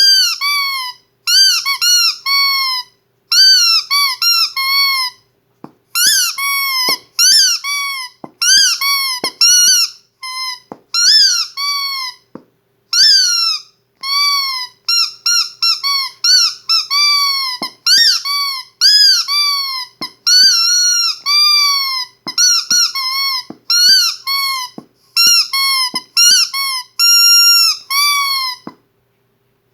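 Squeaky dog toy squeezed over and over in quick runs of high squeaks. Each squeak rises and then falls in pitch, with short pauses between the runs.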